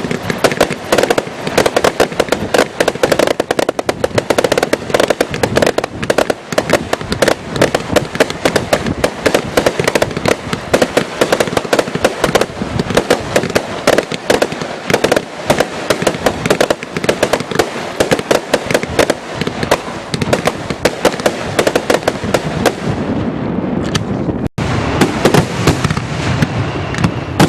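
Fireworks display going off in a dense, rapid barrage of bangs and crackles, many reports a second. The high crackle thins out near the end, leaving a lower rumble.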